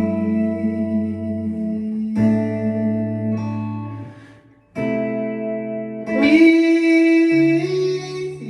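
Instrumental passage of a pop ballad, led by guitar: held chords that change about every two seconds. The music fades almost to nothing just before the middle, then comes back fuller and louder.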